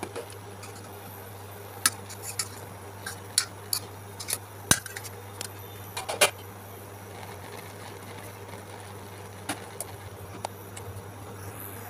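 Steel spoon clinking against a perforated steel steamer pot as banana-leaf-wrapped fish parcels are moved about: a scatter of sharp clinks, thickest through the first half, with a few more later, over a steady low hum.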